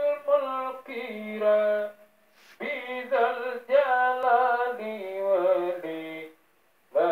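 A group of men singing a chant in long, gliding phrases, with two short pauses: one about two seconds in and one shortly before the end.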